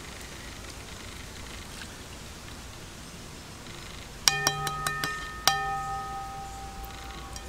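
A boiled egg tapped against the rim of a metal pan to crack its shell: a quick run of sharp taps about four seconds in and one more a moment later, each setting the pan ringing with a bell-like tone that fades over about two seconds.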